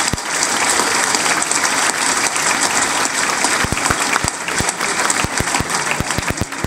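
Large audience applauding: dense clapping that thins to scattered single claps near the end.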